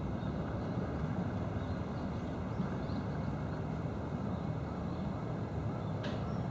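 Steady low outdoor rumble of background noise, with faint short high chirps scattered through it and one brief sharp high call about six seconds in.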